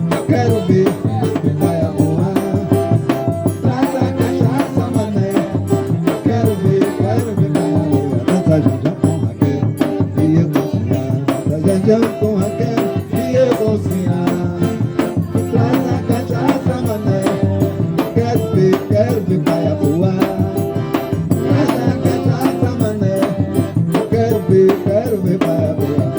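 Live forró band playing with a quick, steady beat.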